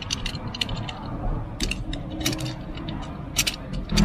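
Irregular light clicks and rattles from parts being handled by hand in an engine bay, in small clusters over several seconds.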